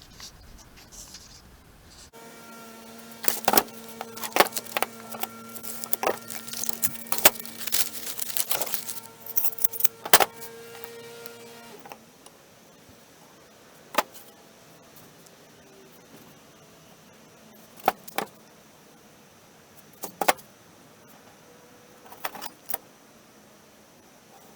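Metallic clinking and knocking, many quick clicks for about ten seconds over a steady low hum that cuts off suddenly. After that come single sharp clicks every few seconds.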